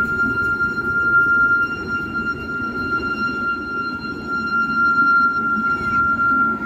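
A long, steady, high-pitched tone held on one pitch over a low rumble, cutting off abruptly near the end.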